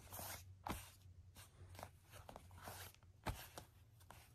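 Faint rustling, scraping and light knocks of a Blu-ray case being handled on a fabric blanket, with one sharper knock about three seconds in, over a faint low hum.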